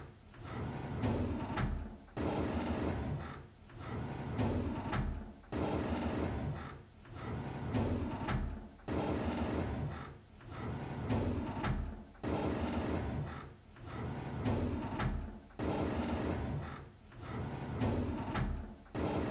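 A drawer sliding open again and again, each pull a scraping slide of a second or two, one following straight after another.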